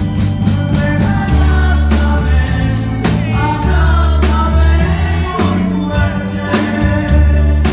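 Live grupera band playing a slow romantic song: a male lead singer over electric bass and drums, with a heavy, steady bass line and regular drum beats.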